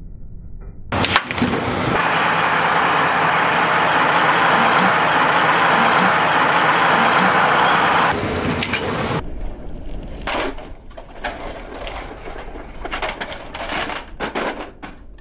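Steel train wheels rolling over plastic toys on the rail and crushing them: a sharp crack, then several seconds of loud steady rolling noise that cuts off. Then comes a run of irregular cracks and crackles as a plastic toy locomotive splinters under a wheel.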